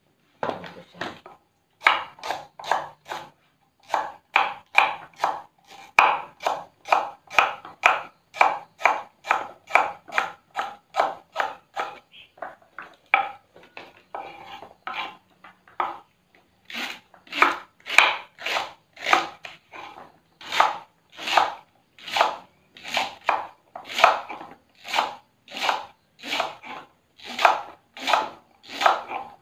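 Kitchen knife chopping fresh taro leaf stalks on a wooden cutting board: a steady run of crisp chops, about two a second, each one knocking on the board, easing off briefly about halfway through.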